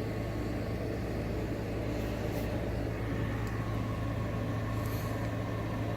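Steady low mechanical hum with a faint hiss over it, unchanging throughout, like a room's ventilation or air-conditioning unit running.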